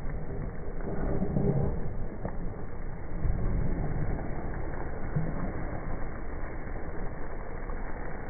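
Chicken cooking in its masala in a pan as it is stirred with a spatula, over a steady low rumble.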